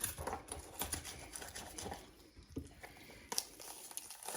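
Hands and a knife working a skinned raw chicken, pulling pieces apart with soft, irregular wet tearing and rustling, and a couple of sharper clicks near the end.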